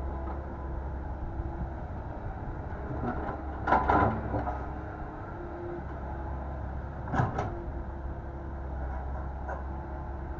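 Komatsu PC120-8 excavator's diesel engine running steadily, with a loud knock about four seconds in and another about seven seconds in.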